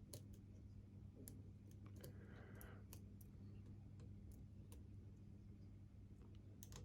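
Faint, scattered clicks of a lock pick working the pins of a four-pin Master Lock Magnum padlock core under medium tension, over a steady low hum.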